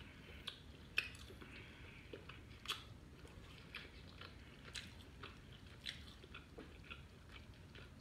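Faint close-up chewing of a mouthful of food, with small mouth clicks and crackles scattered through.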